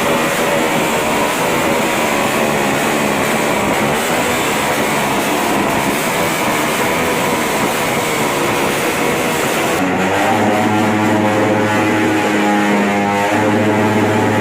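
Loud motorcycle exhausts running during a loud-pipes sound check: a dense, noisy roar. About ten seconds in it cuts abruptly to a steadier sound of held tones that shift in pitch near the end.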